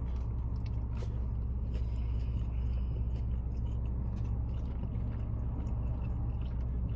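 A person chewing a mouthful of sub sandwich, with faint scattered mouth clicks, over the steady low hum of a car interior.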